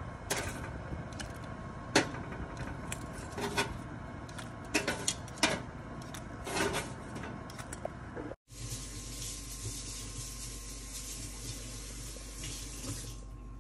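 Metal tongs clicking and scraping against a foil-lined baking tray and a plate as baked potato wedges are lifted out and served, a handful of sharp clicks spread over several seconds. A little past halfway this cuts off suddenly and gives way to a steady low hum and hiss.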